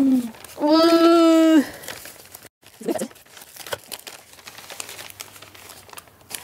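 Newspaper wrapping crinkling and rustling as it is pulled open from around a potted plant. About a second in, a long held vocal sound at a steady pitch, lasting about a second and louder than the paper, with a short falling vocal sound a couple of seconds later.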